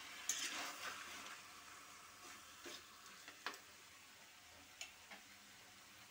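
Chicken pieces sizzling faintly in a metal wok with a little water and spices, while a spatula stirs them, making a few sharp clicks and scrapes against the pan, the loudest about a third of a second in and about three and a half seconds in.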